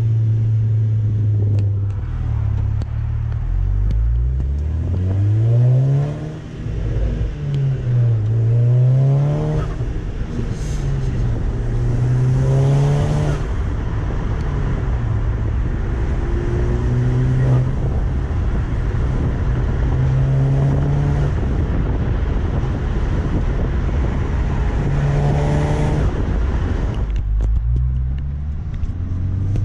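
A stage 2 2013 VW Golf R's turbocharged 2.0-litre four-cylinder pulling hard through the revs several times, its pitch climbing and then dropping at each shift or throttle lift. Short hissing whooshes come as the throttle closes, the new Forge diverter valve venting boost.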